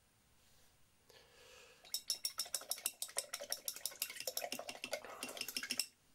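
A paintbrush stirred briskly in a glass jar, rapidly clinking against the sides for about four seconds. The clinking starts about two seconds in and stops abruptly near the end, after a soft rustle.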